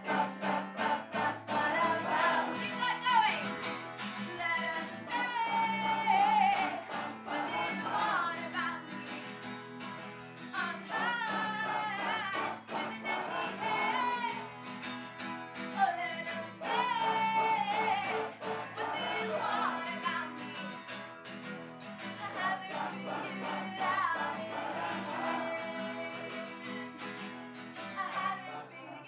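Live acoustic song: a sung melody with wavering, sustained notes over steadily strummed guitar.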